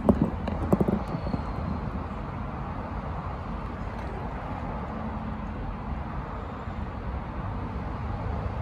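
Steady outdoor urban background hum, with a few short clicks in the first second.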